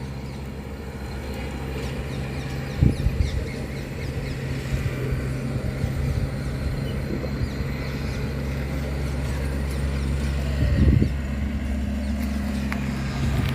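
Steady low hum of road traffic or an engine running, with two brief low thumps, one about three seconds in and one near the end.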